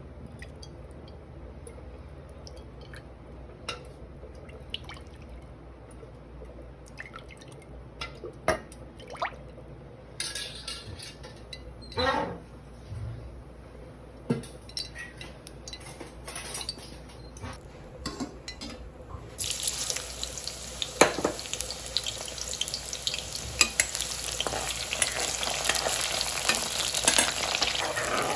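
Scattered clicks and scrapes of a utensil in a cooking pan, then, about two-thirds of the way in, a sudden, loud, steady frying sizzle with stirring as food goes into hot oil.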